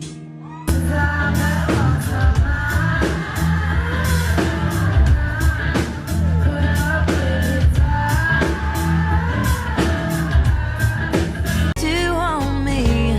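Music: a song with singing over drums and guitar. It cuts in abruptly just under a second in and switches to a different passage near the end.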